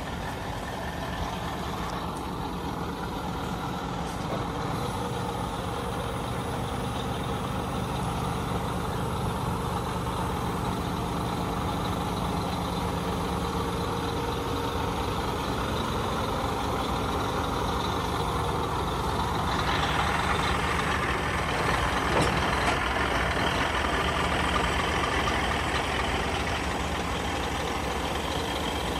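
Scania R440 truck's six-cylinder diesel engine idling steadily, a little louder about two-thirds of the way through.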